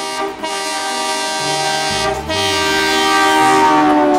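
A train horn sounding one long blast of several tones together. Its pitch drops in the last second as it passes.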